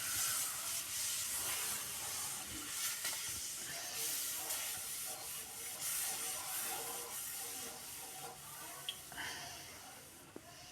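Milk sizzling and hissing as it hits a hot pan of ghee-roasted gram flour while it is stirred in, the hiss slowly dying down.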